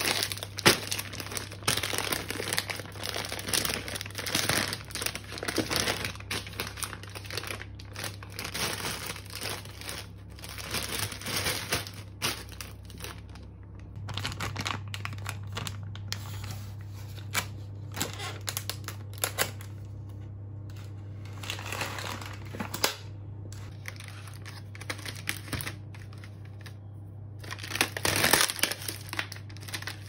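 Plastic food packaging crinkling as it is handled: a bag of frozen chips and a plastic fishcake tray. The crackling comes in dense bursts, thins out for a long stretch midway, and picks up again near the end, over a steady low hum.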